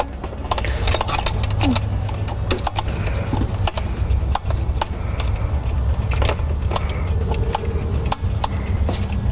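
Scattered small metallic clicks and taps as retaining bolts and an internal transmission filter are handled and fitted by hand to the valve body, over a steady low hum.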